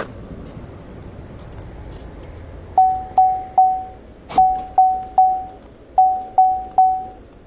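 2006 Pontiac Montana's electronic warning chime ringing in groups of three quick dings, the groups repeating steadily from about three seconds in, which the mechanic ties to the anti-theft alarm being set. A sharp click sounds at the start and another a little after four seconds in.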